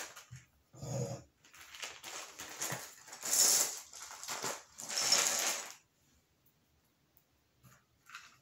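A handful of clear acrylic crystal gem stones being handled and set down on a hard countertop: three short bursts of rattling and rustling, the loudest about three and a half seconds in.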